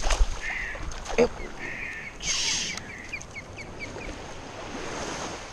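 Water splashing in shallow surf, with a loud hissing splash about two seconds in and a quick run of short, high ticks after it.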